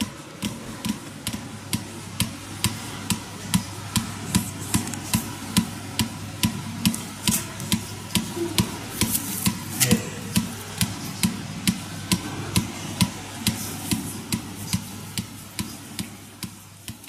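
PAPIMI ion-induction (pulsed electromagnetic field) therapy device firing its pulses: sharp, regular clicks at about two a second over a low hum, fading near the end.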